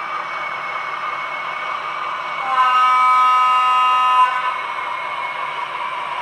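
Roco H0-scale ČD 'Taucherbrille' model diesel locomotive running with a steady engine drone. About two and a half seconds in, it gives one horn blast lasting nearly two seconds.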